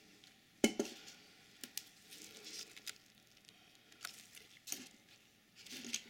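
Handling noise: scattered light clicks and knocks with some rustling. A sharp click about two-thirds of a second in is the loudest.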